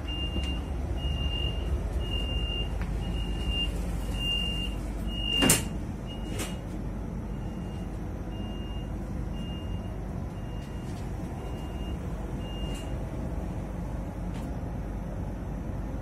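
Door-closing warning beeps on a Stadler EŠ2 double-decker electric train: a short high beep a little over once a second, over the low rumble of the carriage, stopping a few seconds before the end. A loud sharp clunk about five and a half seconds in, then a lighter one a second later, as of the sliding doors shutting.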